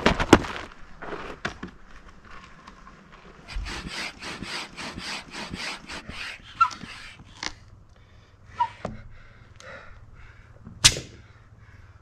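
Hand pump inflating an inflatable stand-up paddleboard: a run of quick, even airy strokes lasting about three seconds, then scattered sharp clicks and knocks.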